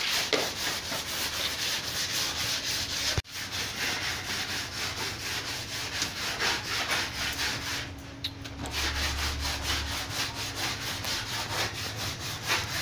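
Sanding: a steady rasping in quick, regular strokes, with a brief break about three seconds in.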